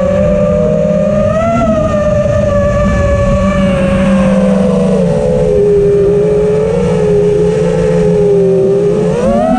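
Quadcopter's motors and propellers whining in flight, their pitch dropping lower about halfway through and rising sharply again near the end as the throttle changes.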